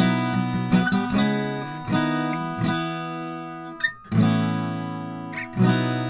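Steel-string acoustic guitar being strummed, chords ringing and fading between a few strong strokes, picked up close by a CAD Equitek E100S condenser microphone.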